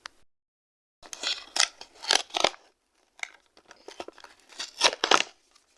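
Packaging of a doll outfit being opened: several short, crisp rasping sounds in two clusters, the first about a second in.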